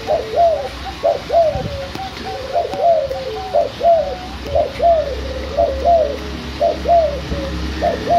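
Spotted dove (derkuku) cooing: short falling coo notes repeated about twice a second, with a longer, lower note drawn out beneath some of them.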